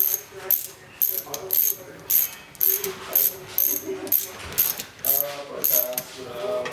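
Metallic ratcheting from hand work on a primer valve during reassembly: a quick run of short rasping strokes, about two a second.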